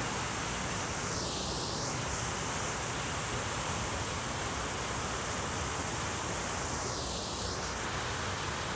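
Jets of a large fountain splashing into its pool: a steady rush of falling water.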